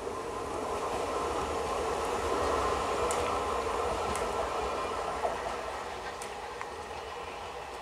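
Medha three-phase EMU local train running on the track as it pulls away, a steady rumble of wheels and motors that swells a couple of seconds in and then fades, with a few faint clicks.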